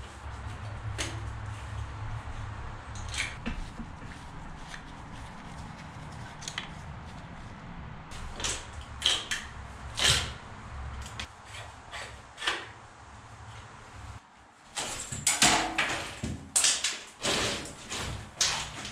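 Sharp clicks and metallic knocks of hand tools working loose pipe and wiring fittings, over a steady low hum. The hum drops away about fourteen seconds in, and a run of louder clanks and clatter follows.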